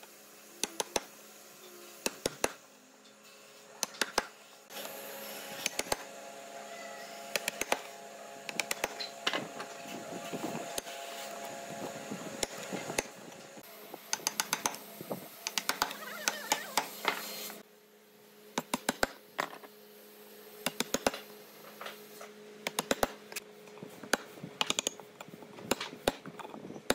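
Wooden mallet striking a steel chisel to chop mortises into a wooden board: sharp knocks in quick runs of several blows, with short pauses between the runs, over a faint steady hum.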